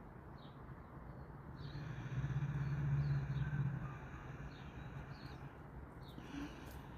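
Quiet outdoor ambience with a few short, faint bird chirps and a low steady hum that swells up and fades away through the middle.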